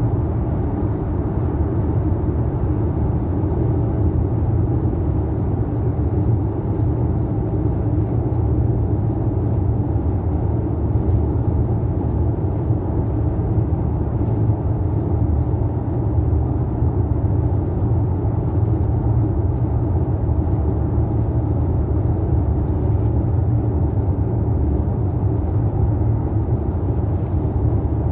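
Steady low rumble of road and engine noise inside a car's cabin while driving at highway speed.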